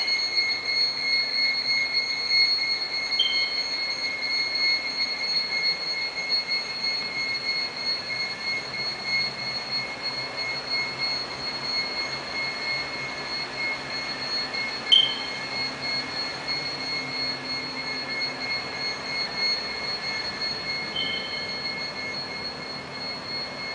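Steady high-pitched electronic whine over an even hiss, broken by three short high chirps: one a few seconds in, a louder one about two-thirds through, and one near the end.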